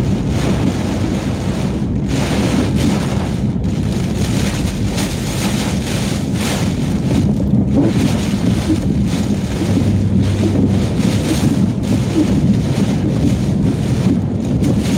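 Hurricane-force wind and driving rain buffeting a car, heard from inside the cabin: a loud, continuous rush that surges unevenly with the gusts.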